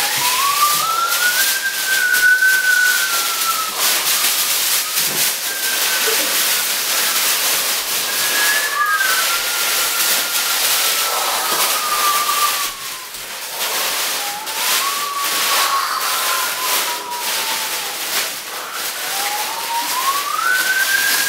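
Wind sound effect: a steady rushing hiss with a whistling tone that rises and then slowly falls, about four times.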